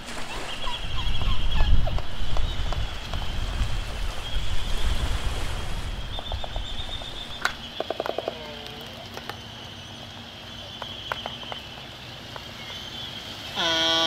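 Albatross calling at its nest with a chick: a quick run of bill clacks and a short call that dips and rises about eight seconds in, then a loud drawn-out nasal call with many overtones near the end. A low rumble of wind and surf fills the first few seconds.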